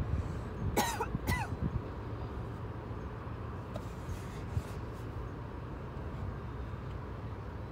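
Two short animal calls about half a second apart, over a steady low rumble.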